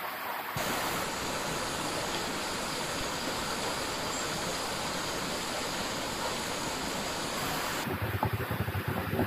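Steady rushing hiss of water, cutting in about half a second in and changing to a duller hiss near the end.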